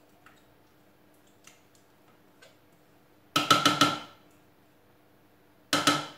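Four quick knocks against the rim of a Thermomix's stainless steel mixing bowl a little over three seconds in, then one more near the end, each with a short metallic ring: ingredients being knocked out into the bowl.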